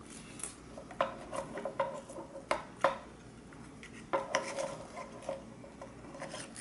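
Light clicks and taps of small plastic drone camera parts being handled by hand as a cable is fed through the housing, coming irregularly, with the sharpest clicks about a second in and around three seconds in.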